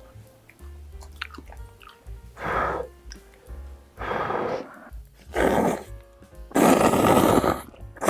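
Four loud slurps of jjapagetti noodles, each about half a second long; the last one, about seven seconds in, is the loudest and lasts about a second. Soft background music plays underneath.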